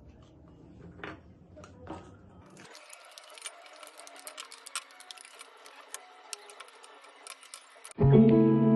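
Faint, rapid, irregular clicking and rattling of sweet corn kernels and chopped vegetables tipped from plastic bowls into a glass mixing bowl. Near the end, much louder acoustic guitar music starts.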